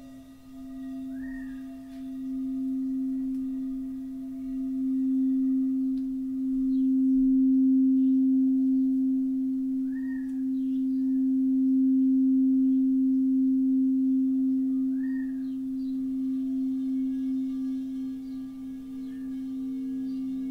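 Crystal singing bowl played by rubbing its rim, one pure sustained tone that swells in volume over the first several seconds and then holds steady. A second, lower bowl tone joins near the end.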